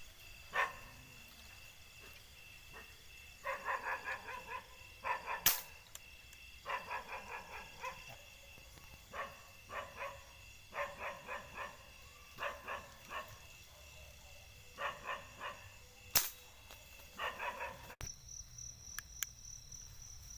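Two sharp air-gun shots about ten seconds apart. Between them come repeated short bursts of rapid, barking animal calls, over a steady high insect drone.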